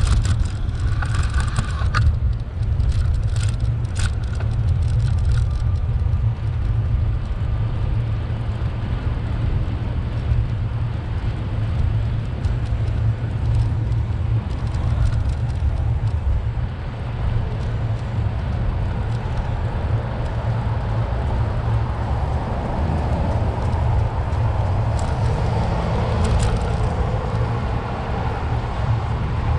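Steady low wind rumble on the microphone of a moving bicycle, over city car traffic. A few sharp clicks in the first few seconds, and the traffic noise swells near the end.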